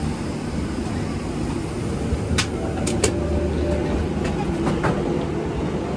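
Steady low rumble of a Boeing 777-300ER cabin at the gate, the air-conditioning and ventilation hum, with a few sharp clicks and knocks between two and three seconds in.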